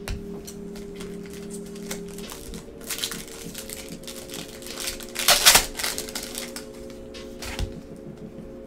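Crinkling and rustling of foil trading-card pack wrappers and cards being handled, in short irregular bursts with the loudest crinkle about five seconds in. Faint background music with held notes underneath.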